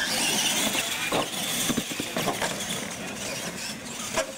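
RC monster trucks racing on a dirt course: their motors and gears whine, rising and falling in pitch with the throttle, with a few knocks as they bounce over the course.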